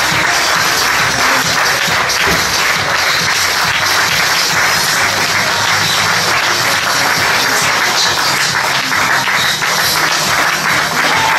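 Crowd applauding steadily, with music playing underneath.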